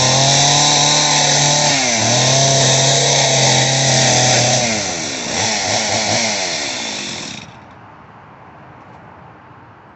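Stihl chainsaw running at full throttle. It dips and recovers about two seconds in, falls back with a couple of short revs from about halfway, then cuts off abruptly about three-quarters of the way through.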